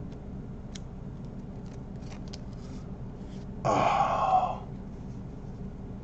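Faint clicks and rustles of trading cards being handled, with a short breathy vocal sound about four seconds in.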